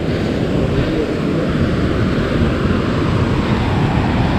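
Steady rushing of a mountain stream cascading over boulders.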